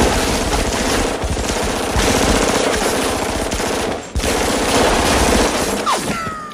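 Submachine guns firing in long, near-continuous automatic bursts, with a brief break about four seconds in. The firing tapers off near the end into a few falling, ringing tones.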